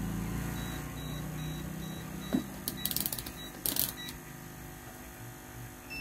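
A low hum that fades away over the first couple of seconds, then a sharp click and two short bursts of rapid clattering clicks.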